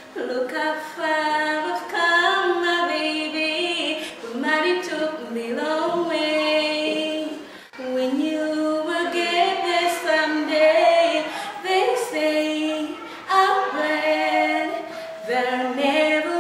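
Unaccompanied group singing led by a woman's voice, in slow phrases of long held notes that slide between pitches, with a short break about halfway through.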